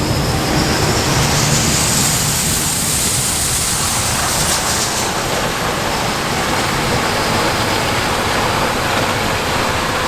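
Fendt Ideal 8 combine harvester running in the field while harvesting corn: a loud, steady mechanical rush of engine and threshing noise.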